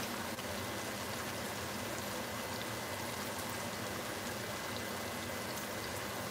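Thick pork chops frying in a skillet of oil, a steady sizzle.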